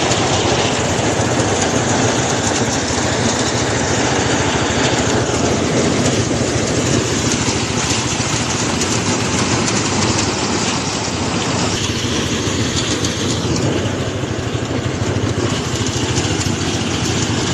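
An engine running steadily and loudly at a constant speed, with a low, even hum.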